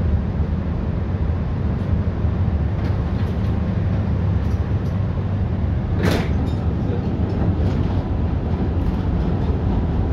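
1965 ASEA M28 tram running, heard from inside the passenger saloon: a steady low rumble of motors and wheels on the rails, with a few light clicks and one sharp knock about six seconds in.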